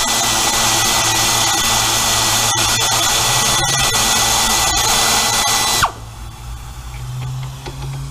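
Hand-held power tool running at a steady speed with a high whine for about six seconds, then winding down and stopping.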